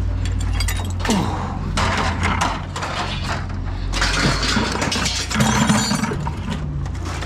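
Pieces of scrap metal clanking and clattering against each other as they are shifted and dropped into a pile, over a steady low hum.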